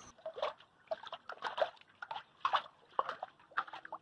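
A live fish splashing and thrashing in a metal basin of water, in short, irregular splashes several times a second.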